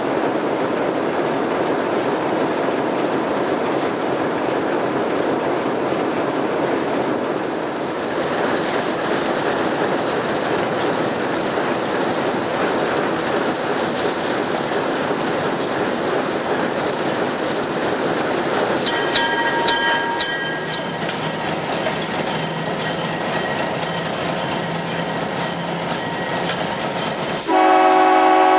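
Diesel locomotive running along the track, a steady mix of engine and wheel-on-rail noise with some clickety-clack. Near the end the locomotive's air horn sounds, suddenly and loudly.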